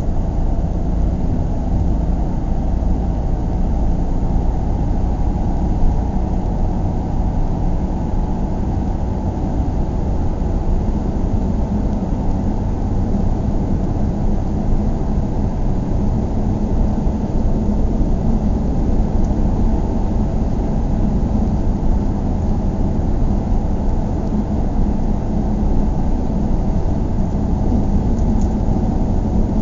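Steady low rumble of a car driving, heard from inside the cabin: an even, deep road-and-engine drone with little high-pitched hiss and no changes in speed.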